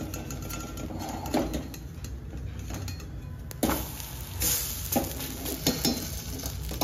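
A spatula scraping and knocking against a steel kadhai, with a few sharp knocks, as a semolina handvo that has stuck to the steel pan is loosened and flipped.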